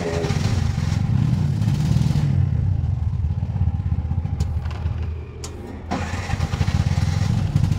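Bajaj auto-rickshaw's single-cylinder CNG engine running with an uneven, pulsing beat. About five seconds in it sags and goes quieter for half a second, with a click, then picks up again. The mechanic takes the running for a sign of some remaining problem after the wiring repair.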